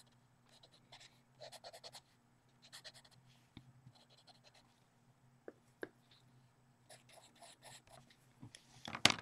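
Derwent pastel pencil scratching on the paper of a colouring book in short, faint strokes, with a louder scrape near the end.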